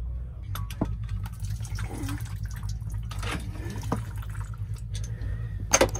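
Fluid dripping and trickling, with scattered light clicks and a steady low hum underneath.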